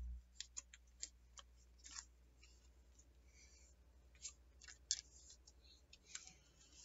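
Faint scattered clicks and light handling noises of trading cards being handled and slipped into the pages of a card album. A low hum cuts off just after the start.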